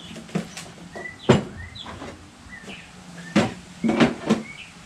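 Sharp knocks and clunks of containers and tools being handled on a shop cart: a few separate knocks, the loudest about a second in, and a quick cluster of three near the end. Faint bird chirps in the background.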